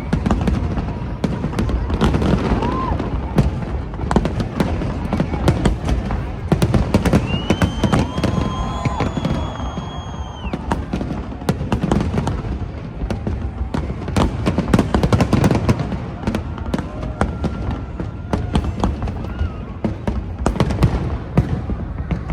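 A fireworks display: a dense, unbroken run of bangs and crackles. About seven seconds in, a steady high whistle-like tone sounds over it for about three seconds.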